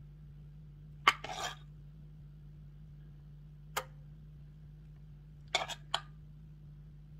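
Metal spoon clinking and scraping against a pot while thick bechamel sauce is spooned out. A sharp clink about a second in, the loudest, is followed by a short scrape; a single clink comes in the middle, and a quick run of three or four clinks near the end.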